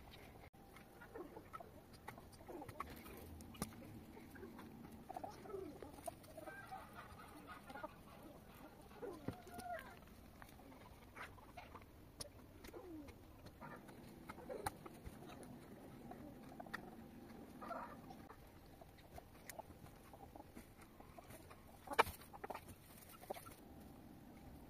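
Chickens clucking softly, with scattered clicks and scrapes of shovels digging into soil, and one sharper knock near the end.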